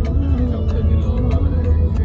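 Background music with a slow, gliding melody and a held tone, over a steady low rumble.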